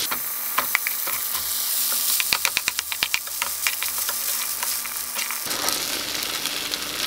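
Melted butter and vegetables sizzling in a skillet as cooked rice is spooned in and pushed around with a plastic slotted spatula. A quick run of clicks and scrapes from the utensils comes about two to three seconds in.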